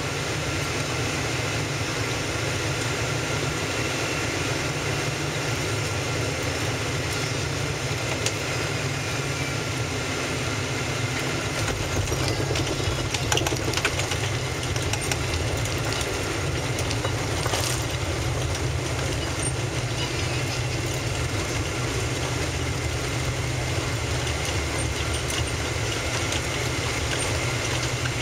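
Cabin noise inside a Boeing 777-200ER during landing: a steady rush of engines and airflow, turning into a rougher rumble with a few knocks from about twelve seconds in.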